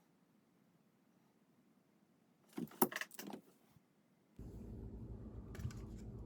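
A brief clatter of small hard parts or tools being handled, a quick run of clicks and rattles about two and a half seconds in, followed from about four seconds in by a steady low hum.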